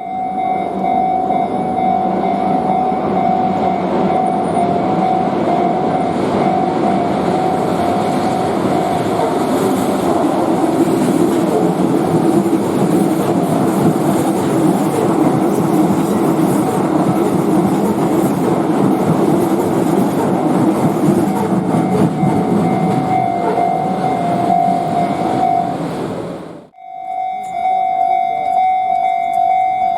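Japanese level crossing warning alarm ringing its repeating electronic tone while a Shin-Keisei Electric Railway train passes over the crossing, with the train's rumble loud over the alarm. The train noise stops abruptly about 27 seconds in, leaving the alarm ringing on its own.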